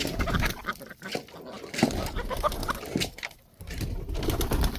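Chickens making low cooing and clucking calls over a low rumbling noise.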